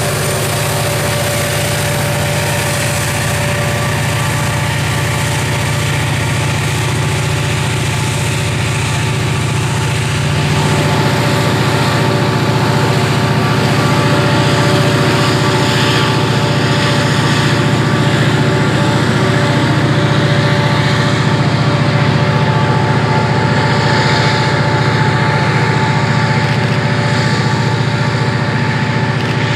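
Diesel-electric freight locomotive's engine running steadily under load, with the rumble of a loaded ore train on the rails. It grows louder about a third of the way in.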